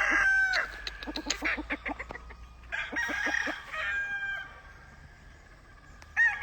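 Gamefowl roosters crowing, several calls one after another, with a run of short rapid clucking notes between them. A fresh crow starts at the very end, after a quieter stretch.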